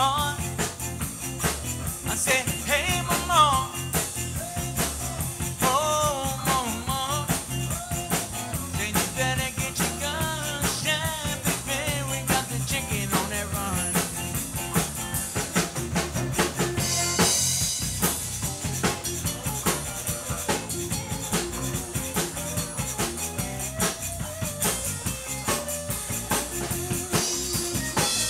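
Live band playing an instrumental stretch of a zydeco song: button accordion and electric guitar over bass and a drum kit keeping a steady beat.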